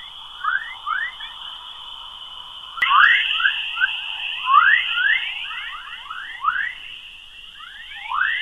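Earth's space radio emissions, picked up from its magnetic field and converted into audible sound. Rising chirps repeat several times a second over a steady high tone. There is a sharp click about three seconds in, where the tone gets louder.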